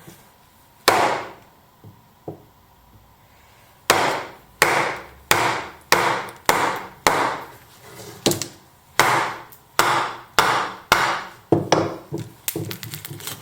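Axe chopping green wood, trimming the side off a bowl blank: a single blow about a second in, then from about four seconds a steady run of sharp blows, roughly one and a half a second.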